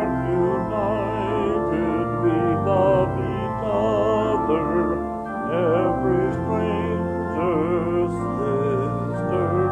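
A hymn sung by voices over held, sustained accompaniment chords, at a slow steady pace.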